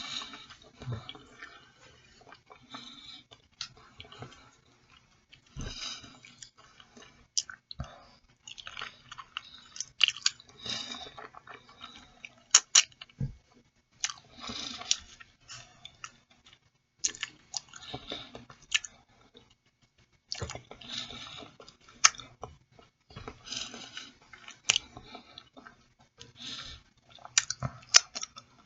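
Close-miked chewing of boiled chicken feet: wet mouth smacks and chewing noises come in irregular bursts, broken by sharp clicks.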